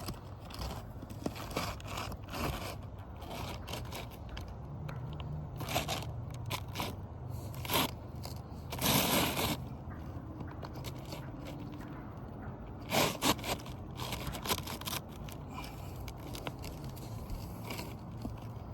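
Irregular scraping and crackling of asphalt roof shingles being handled and worked, gritty rasps coming in short bursts, the strongest about halfway through.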